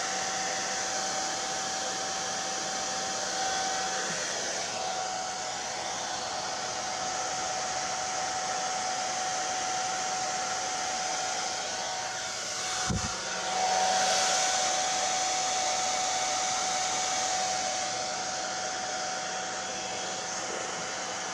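Handheld hair dryer running steadily: a rush of air with a constant motor whine. A brief low thump comes about 13 seconds in, and the dryer is a little louder for a few seconds after it.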